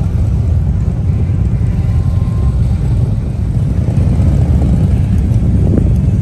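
Wind buffeting the microphone: a loud, steady low rumble with an irregular flutter.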